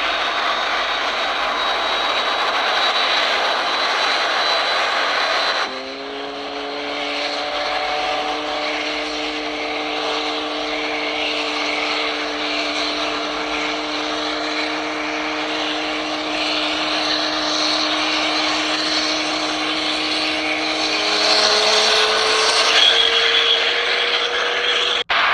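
Jet airliner engine noise from an Airbus A320-family jet on the runway. It is a steady wide rush, and after a cut about six seconds in a few steady humming tones sit over it. Near the end one tone rises in pitch and the noise grows louder as the engines power up for takeoff.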